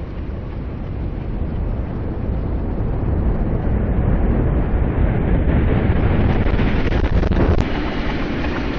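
Low, noisy rumble and rush from a rock-tunnel blast as air and dust blow out of the tunnel portal, swelling over the first few seconds and then easing slightly. A few sharp clicks about seven seconds in.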